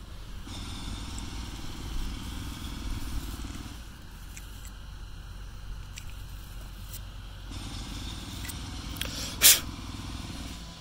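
Rough scrubbing and scraping on a small brushless fan motor's rotor and stator to clear corrosion, in two spells, over a steady low rumble. A single sharp click near the end is the loudest sound.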